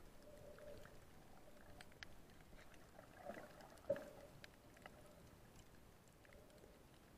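Near-silent underwater ambience: faint hiss with scattered small clicks, and one sharper click about four seconds in.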